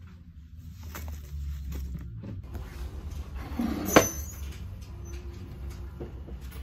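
A glazed ceramic bowl being handled on a metal store shelf, with one sharp clunk about four seconds in over a low rumble of handling noise.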